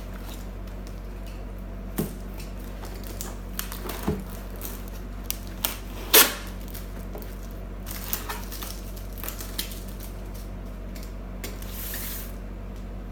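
Hands handling packaging and parts from an unboxed box: scattered clicks, rustles and light knocks, with one sharp knock about six seconds in, over a steady low hum.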